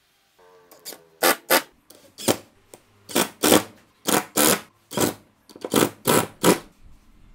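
Cordless impact driver driving screws through a cast-iron pipe flange into a plywood disc. A brief whir of the motor comes first, then about a dozen short bursts of hammering rattle as the trigger is pulsed and the screws seat.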